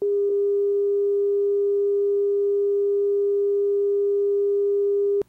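Broadcast line-up tone on a videotape program slate: a single steady mid-pitched sine tone held without change, cutting off suddenly near the end.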